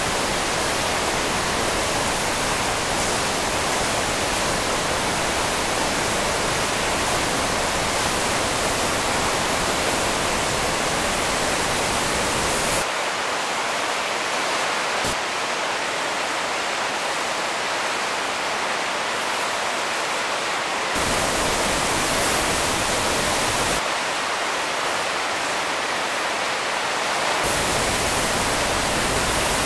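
Kootenai Falls' steady rushing roar of white water pouring over rock ledges, the Kootenai River in high flow, swollen by fast snowmelt. The deep low rumble drops away abruptly twice and comes back, about halfway through and again near the end.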